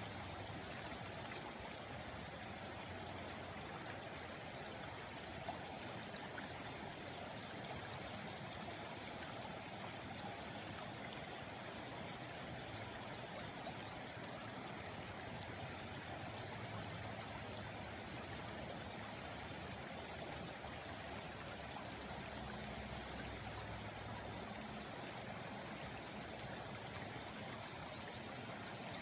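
Stream water flowing steadily, a continuous even rush of moving water.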